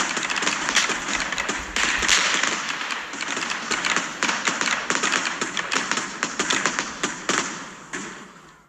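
Fireworks crackling and popping in a dense, rapid run of sharp cracks, dying away near the end.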